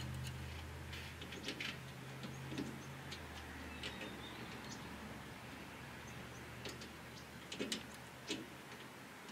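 Faint, scattered light metallic clicks and taps as a steel brake line and its flare nut are handled and threaded by hand into the master cylinder port. A low steady hum underneath fades out about four seconds in.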